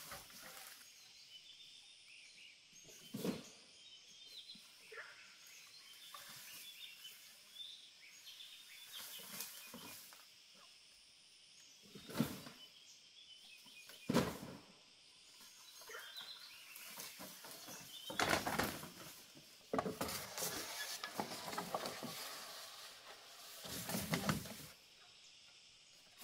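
Green bamboo poles sliding down a bare dirt slope and knocking as they land: a few separate thuds several seconds apart, then longer scraping, rustling stretches as more poles skid through the brush. Birds chirp faintly behind.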